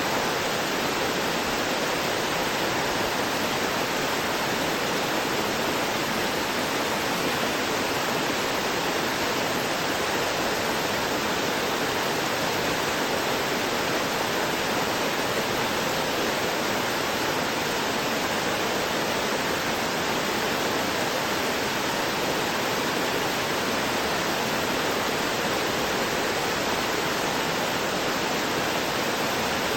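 Water of a small rocky waterfall rushing and gurgling over stones, a steady even rush.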